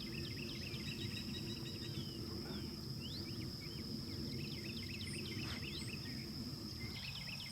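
Outdoor ambience of insects and birds: a steady high-pitched insect drone, with many short chirping bird calls over a low rumble.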